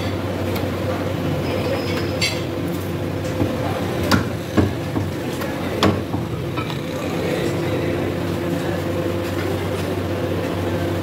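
A steady mechanical hum, with a few sharp knocks about four to six seconds in as a butcher's knife and cuts of mutton strike a wooden chopping block.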